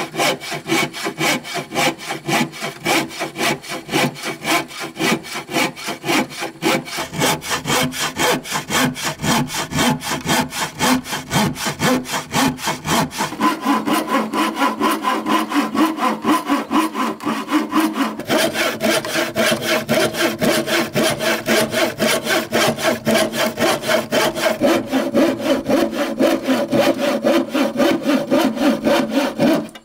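A hand saw cutting wood with quick, even back-and-forth strokes, about four a second.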